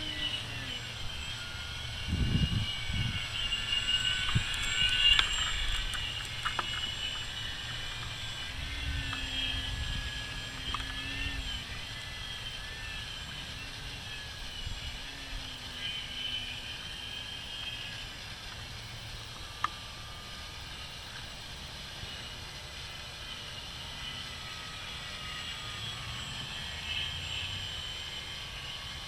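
Radio-controlled model airplane flying, its motor and propeller a high whine that rises and falls in pitch as it passes. Low rumbles come through a few seconds in.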